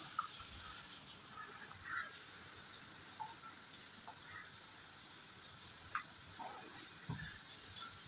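Small birds chirping outside, a string of short high chirps each falling in pitch, repeating about once or twice a second. A couple of faint knocks come through, one at the very start and one about six seconds in.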